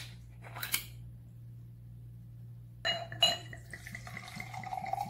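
Glassware handled: a sharp click at the start, then two ringing clinks of a glass tumbler about three seconds in, with a faint steady ringing after them.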